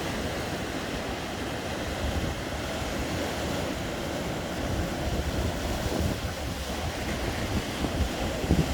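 Sea waves breaking and washing on the shore, with strong wind buffeting the microphone in gusty low rumbles.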